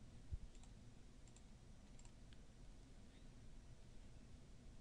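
Faint computer mouse clicks over near-silent room tone, several coming in quick pairs about a second apart, with one low thump about a third of a second in.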